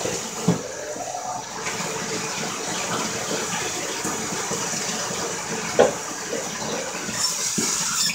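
Shower water running steadily into a bathtub while a dog is rinsed of shampoo, with a short squeak about six seconds in.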